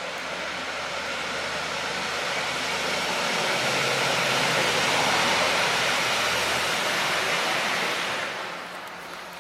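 A road vehicle passing on the highway close by: tyre and engine noise builds for about five seconds, peaks, then fades away about eight seconds in.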